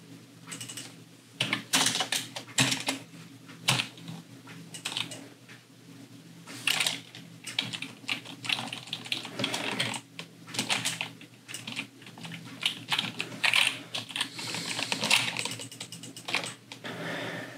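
Computer keyboard keys clicking and tapping irregularly in short flurries, with a low steady hum underneath.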